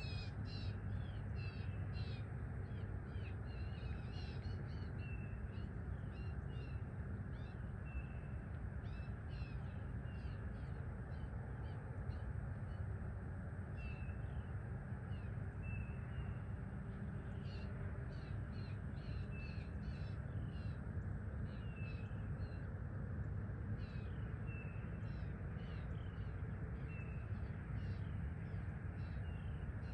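Birds calling at sunrise: many short, high chirps and calls in quick succession, over a steady low rumble.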